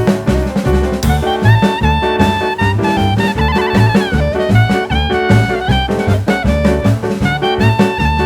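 Background music: an upbeat jazz track with a steady drum-kit beat and a horn melody that comes in about a second in.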